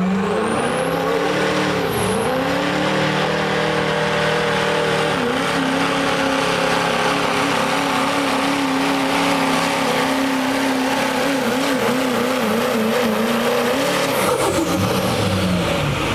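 Chevrolet Silverado diesel pickup engine at full throttle, pulling a weight-transfer sled. The revs climb at the launch, dip briefly about two seconds in, and then hold high, wavering up and down near the end of the run. Around fourteen seconds in they fall away as the driver lifts off and the truck comes to a stop.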